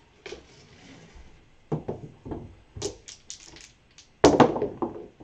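Dice on a felt craps table: a run of light clicks and clacks, then the pair thrown, clattering loudly as they land and bounce off the table wall about four seconds in.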